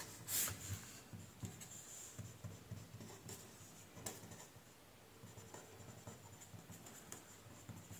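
Pen writing on paper: faint, short scratching strokes with small pauses between them, one slightly louder stroke about half a second in.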